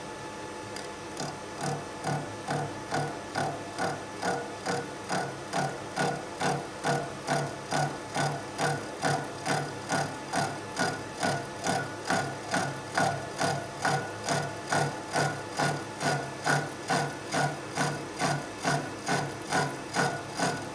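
Horizontal milling machine with a quarter-inch-wide cutter on the arbor slotting a metal bar at about a 50-thousandths depth of cut. A steady hum with a rhythmic grinding pulse about twice a second that starts about a second in as the cutter bites into the work. The uneven, pulsing cut is the sign of the cutter running a little off center, which the machinist puts down to either the cutter being off or the arbor being bent.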